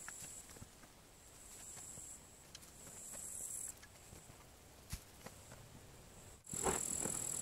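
Shovel chopping and scraping into dug soil: scattered soft thuds, with a louder run of several blows near the end. Insects trill high in the grass, coming and going in stretches of about a second.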